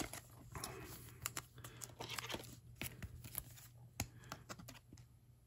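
Faint crinkling of a clear plastic card sleeve and scattered light clicks as a trading card is handled and slid into it.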